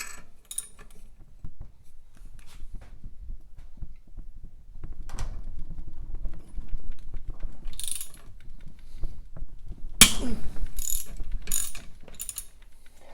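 Hand tools working a tight conrod bolt nut on a motorcycle crankshaft held in a vise: ratchet clicks and metal knocks, with one loud sharp crack about ten seconds in, followed by a few more clicks.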